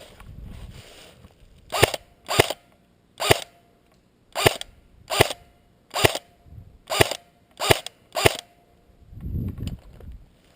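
An airsoft gun firing single shots, about nine sharp cracks spaced roughly half a second to a second apart.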